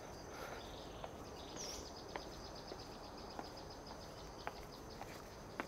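Faint outdoor ambience: a steady, high-pitched, rapidly pulsing wildlife chirping, with a few soft, scattered ticks of footsteps on a path.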